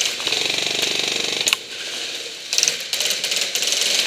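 Rapid, evenly spaced mechanical ratcheting clicks from an airsoft gun's mechanism. There is one long run of clicks that drops off about a second and a half in, then shorter bursts.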